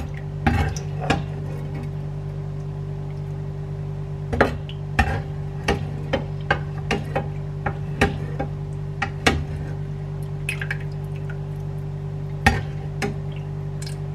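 A stainless slotted skimmer clinking and scraping against a granite-coated frying pan and a ceramic bowl, with sauce sloshing and dripping, as braised duck tongues are lifted out. The clinks come a dozen or so times at uneven intervals over a steady low hum.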